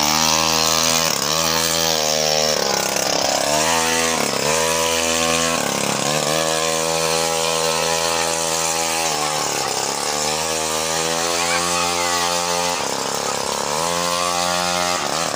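Small grass-cutter (brush-cutter) engine powering a homemade motorized bicycle, running under load as it is ridden. Its pitch dips and climbs back up several times as the engine speed falls and rises.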